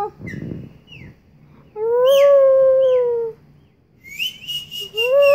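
Long, drawn-out canine howls. One steady howl runs about two seconds in for over a second, and another begins near the end. Between them come thin, high, whistle-like howls with short falling slides.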